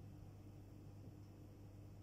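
Near silence: a faint steady low hum under a light hiss.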